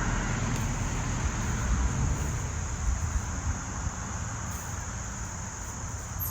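Steady chorus of garden insects, a continuous high-pitched trill, over uneven low noise.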